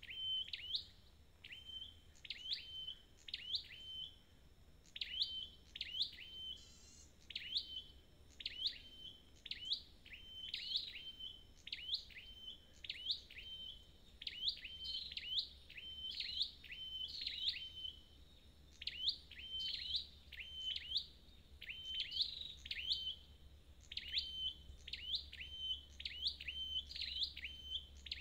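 Red-headed flowerpecker ('chim sâu đầu đỏ') calling over and over. Its high, sharp chip notes each drop quickly in pitch and end on a brief flat note. They come in close runs of several a second, with a few short pauses.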